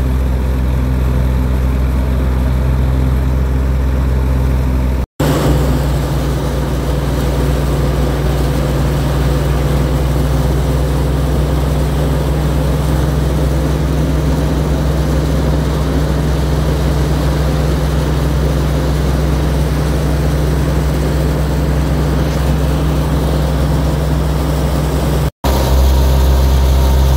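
Wheat threshing machine running steadily: a loud, even engine hum with constant mechanical noise over it. The sound drops out for an instant twice, and the pitch of the hum shifts slightly after each break.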